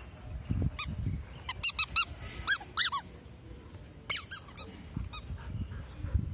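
Squeaky toy ball squeaking: about a dozen short, high squeaks in quick runs of two to five, spread over a few seconds and tailing off near the end.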